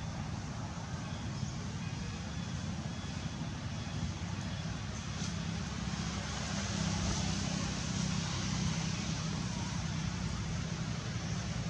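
Steady outdoor background noise: a low rumble with an even hiss over it, unbroken throughout.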